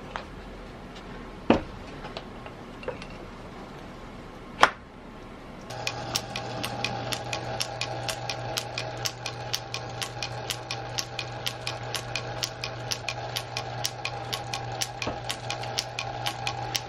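A small metal lathe starts about six seconds in and runs steadily with its four-jaw chuck spinning. It makes a steady hum with a rapid, even ticking of about four or five ticks a second. Before it starts there are two sharp metallic clicks, the second the loudest sound here.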